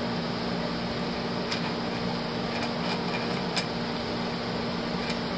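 A few faint clicks as the tripod collar is worked back onto an Olympus M.Zuiko 300mm f/4 PRO lens, over a steady background hum and hiss.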